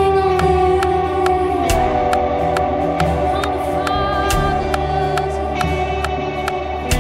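Live worship band music: electric guitar played through an effects pedalboard, with voices singing held notes over a steady beat.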